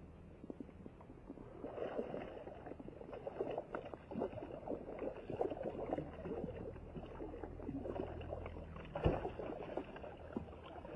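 Water splashing and sloshing around a fishing kayak, irregular and busy, building up about a second and a half in, with a sharp knock on the hull about nine seconds in.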